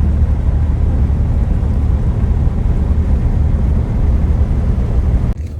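Truck towing a loaded trailer driving along the road: a steady, loud, low rumble of engine, tyres and wind. It drops away suddenly near the end.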